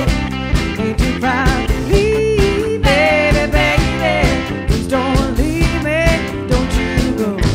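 Live rock band playing an instrumental stretch of a song: drums, bass and rhythm under a lead electric guitar line with bent notes.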